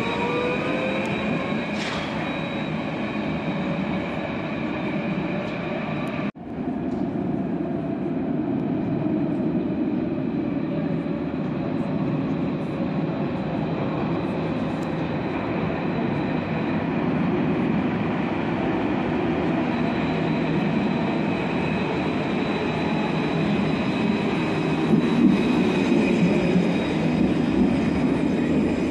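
Alstom Citadis 302 light-rail tram pulling away with a rising electric traction-motor whine over the first couple of seconds. Steady rail rumble follows, and near the end a second tram runs in close by, louder.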